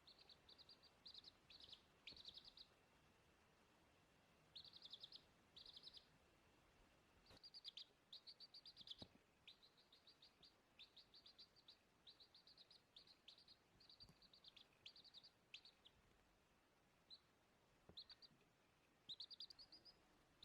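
Baby chick peeping: clusters of quick, high-pitched chirps repeated in runs, faint, over a thin steady high whine.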